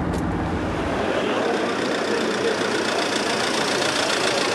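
Road traffic noise: a car's low engine and road rumble from inside the cabin, changing about a second in to the steady noise of street traffic with a van driving past.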